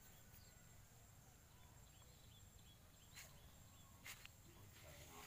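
Near silence: faint outdoor background, with two faint clicks about three and four seconds in.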